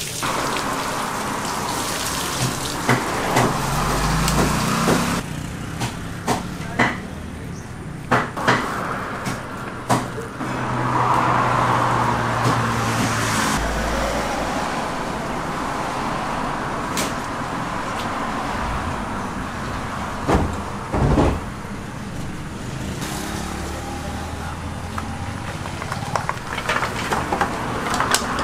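Road traffic passing, with engine hum that rises and fades, under scattered knocks and clatter that grow busier near the end.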